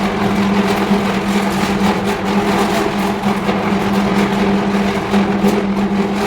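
5-tonne electric arc furnace running during a heat: a loud, steady electrical buzz with a strong hum, overlaid with dense, irregular crackling.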